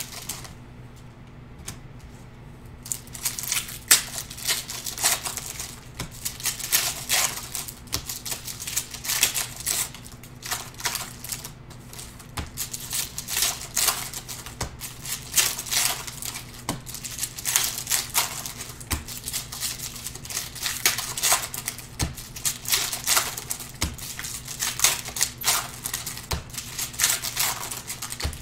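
Foil wrappers of Panini Prizm basketball card packs crinkling and tearing as packs are ripped open one after another: a dense run of irregular sharp crackles starting about three seconds in.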